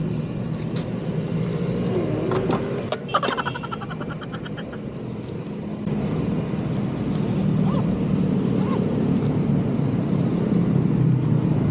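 Fuel dispenser pump running with a steady hum as gasoline is pumped through the nozzle into a scooter's fuel tank, louder from about six seconds in. A few clicks come a few seconds in.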